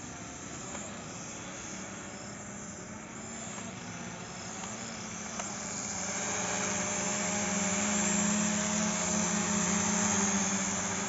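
Small toy quadcopter drone's propellers buzzing steadily, getting louder about halfway through as it comes close and staying loud to near the end.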